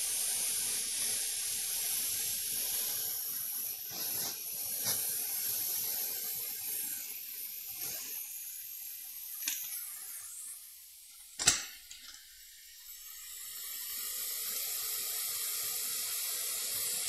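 Hot air rework station blowing a steady hiss onto a laptop logic board to melt solder, with a few light ticks and one sharp click about eleven and a half seconds in.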